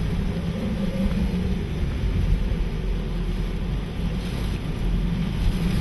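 Hurricane-force wind and rain lashing a moving vehicle, a steady rushing noise over the low hum of the engine and tyres on the wet road.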